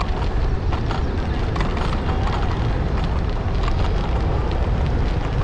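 Wind rumbling steadily on the microphone of a rider coasting downhill at speed on an ElliptiGO, with scattered sharp clicks and rattles.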